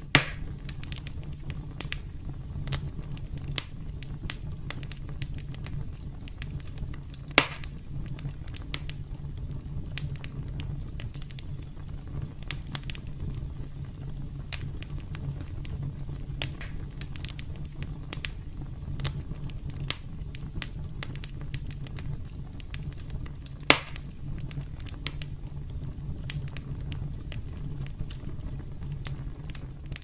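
Campfire crackling steadily, many small snaps over a low rumble, with three loud sharp pops: one right at the start, one about seven seconds in, and one about three-quarters of the way through.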